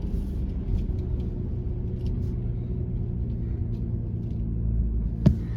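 Toyota 4Runner's engine running low and steady, heard from inside the cabin, with scattered small clicks and one sharp knock about five seconds in.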